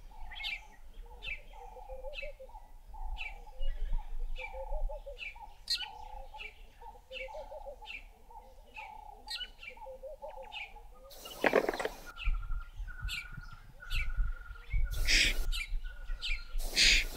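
Wild birds calling: a run of short falling chirps, about two a second, over a repeated lower phrase that gives way, about twelve seconds in, to a series of single level whistled notes. Three short rushes of noise cut across the birdsong in the second half.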